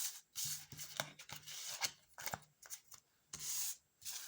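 Tarot cards being shuffled and handled: a broken run of rubbing and sliding with light card snaps.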